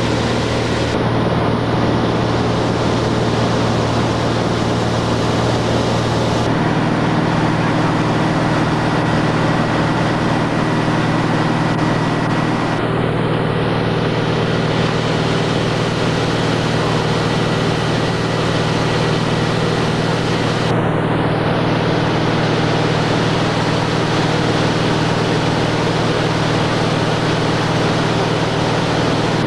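Cabin drone of a high-wing light aircraft in cruise: steady, loud engine and propeller hum with wind noise. Its tone shifts abruptly a few times.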